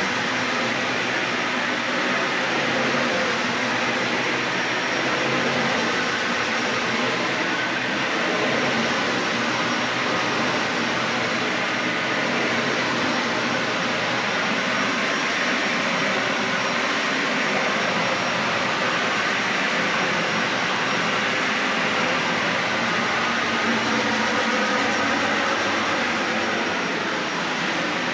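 Dyson Ball Animal 3 Extra upright vacuum cleaner running steadily while vacuuming carpet.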